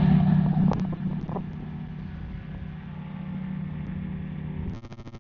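Engine of a Revo weight-shift trike running at high power after being throttled up on a touch-and-go, a steady pitched drone that is loudest in the first second. A couple of brief clicks come about a second in, and the sound chops in and out briefly near the end.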